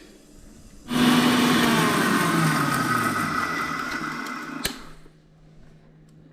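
Electric mixer grinder dry-grinding roasted whole spices in its small jar. The motor starts suddenly about a second in and runs for about four seconds, its pitch sinking, then stops with a click.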